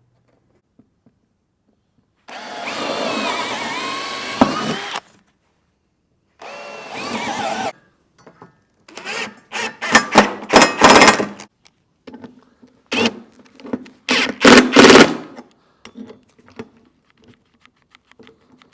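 Power drill running twice for a few seconds, as when drilling pilot holes. Then, from about nine seconds in, it runs in a series of short, loud bursts, as when driving lag screws.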